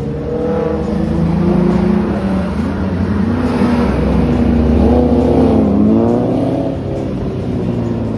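A line of cars and motorcycles driving past through a bend, their engines revving up and easing off several times as they accelerate out of the curve.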